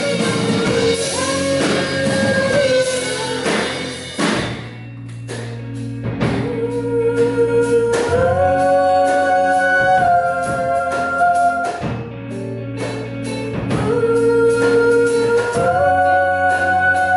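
Live rock band with female vocals singing long held notes over electric guitars, bass guitar and drum kit. The band drops back briefly about four seconds in, then comes up again.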